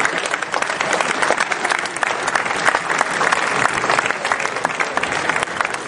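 Crowd applauding: many hands clapping at once, steady throughout.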